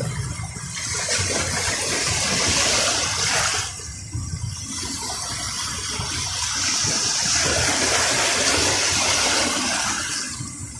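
Waves washing up onto a beach: two long surges of rushing water. The first cuts off a little under four seconds in; the second builds, holds and fades away near the end.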